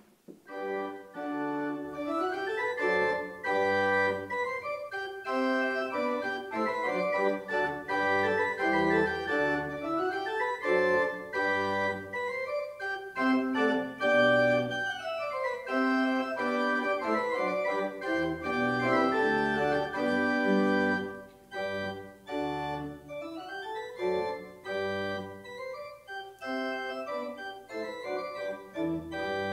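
Organ playing the prelude of a church service: sustained chords with runs of notes rising and falling, starting about half a second in.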